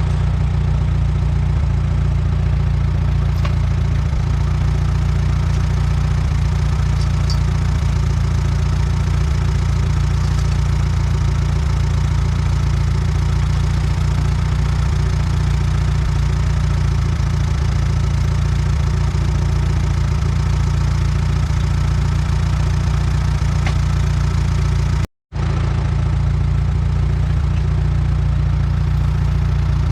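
Allis-Chalmers WD tractor's four-cylinder engine idling steadily, with a brief gap about 25 seconds in.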